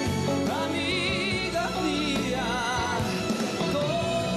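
Live orchestra playing a slow ballad, with a man's sung notes wavering in vibrato over the strings and no clear words.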